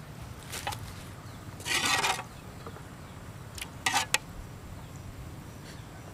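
A metal spoon scraping and knocking against a metal wok: a short scrape about two seconds in, then a few sharp clicks around four seconds in.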